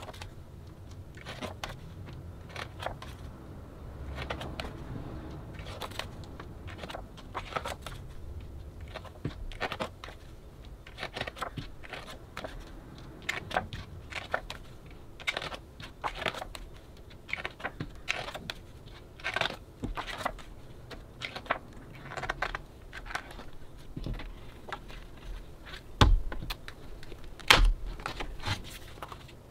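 Pages of a paperback photo book being turned and handled: irregular paper rustles, small clicks and taps. Near the end come two louder knocks about a second and a half apart.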